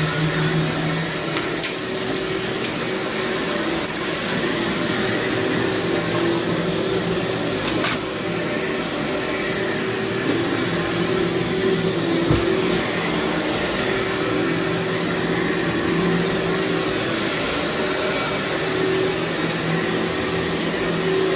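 Canister vacuum cleaner running steadily as it is pushed over heavily soiled carpet, picking up dry soil with a crunchy sound over its motor hum. A sharp click about eight seconds in and a short low knock about twelve seconds in.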